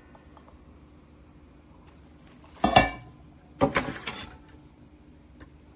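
Two short bouts of metal clinking and clattering with a little ringing, the first about two and a half seconds in and the louder, the second about a second later.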